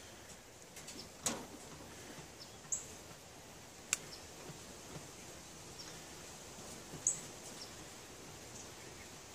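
Faint outdoor background with a few sharp clicks and light scuffling as a doe rabbit moves about on her wire cage floor near shredded newspaper nesting material, and short high bird chirps twice.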